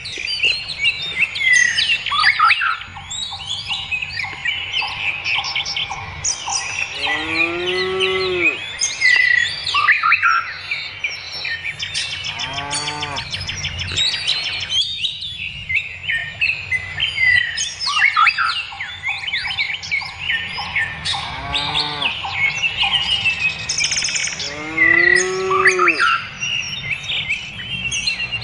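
Songbirds chirping and singing without a break, with cattle mooing four times, each moo one long call that rises and falls in pitch.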